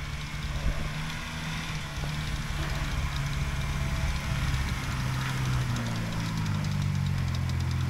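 Lada Niva 1.7's four-cylinder petrol engine running steadily under load as the 4x4 works through mud and snow, its revs rising a little about six seconds in.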